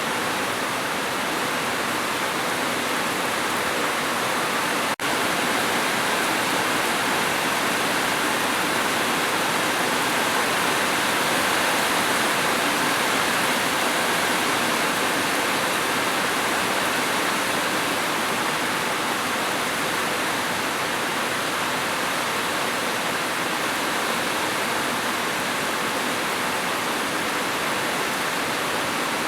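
Steady heavy rain, a dense even hiss with no separate drops standing out. About five seconds in there is a split-second dropout.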